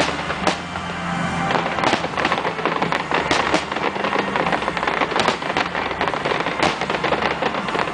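Aerial fireworks shells bursting in rapid succession: a dense run of sharp bangs and crackles that thickens about a second and a half in. Music plays underneath.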